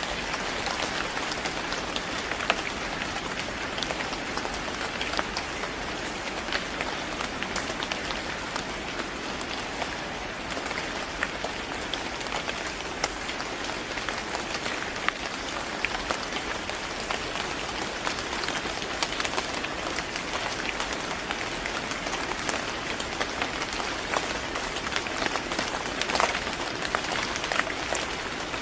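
Steady rain falling on a hard surface, a dense even hiss with scattered sharper drop ticks.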